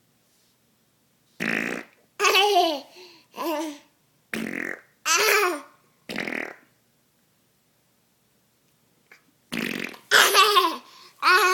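A baby laughing in several runs of high-pitched giggles that fall in pitch. Short, breathy blowing sounds come between the runs.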